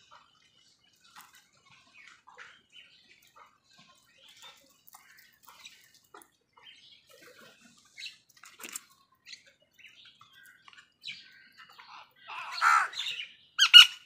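House crows at a food bowl: scattered faint clicks and soft chirps, then a loud harsh caw about twelve seconds in and a second short caw just before the end.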